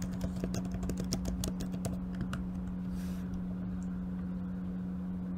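Computer keyboard typing: a quick, irregular run of key clicks over about the first two seconds, then it stops. A steady low hum runs underneath.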